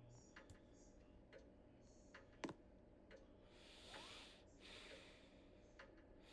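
Near silence: a Casablanca Capistrano ceiling fan running on high, heard only as a faint steady hum with light ticks about once a second and a soft hiss around the middle.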